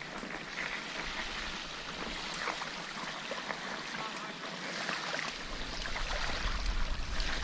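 Shallow flood water splashing and sloshing with many small irregular splashes as someone moves through it. A low rumble comes in near the end.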